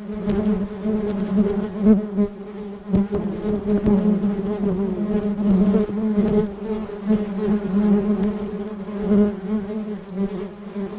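Honeybees buzzing close to the microphone: a steady, slightly wavering hum that cuts off suddenly just after the end.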